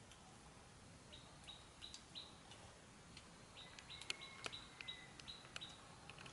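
Faint, high bird chirps repeating, with a few sharp clicks in the second half.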